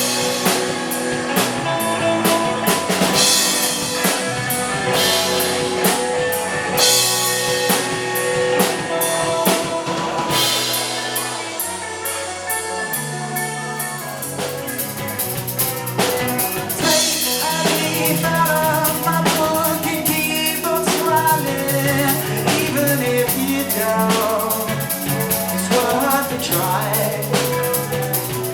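A live rock band playing an instrumental passage: drum kit with bass drum and snare under sustained guitar and bass notes, thinning out briefly midway before the drums come back in steadily.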